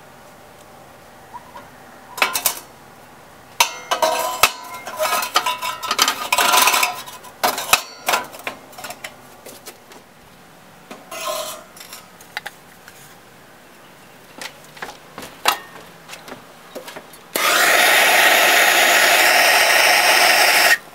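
Sheet-metal stove parts clattering and scraping as they are handled and fitted together, with scattered knocks. Near the end, a handheld propane torch hisses loudly and steadily for about three and a half seconds, lighting the stove's fuel, then cuts off suddenly.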